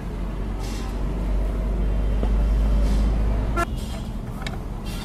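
Low rumble of a motor vehicle's engine, building and then cutting off suddenly about three and a half seconds in. A few light metal clicks come near the end, from gearbox parts being handled.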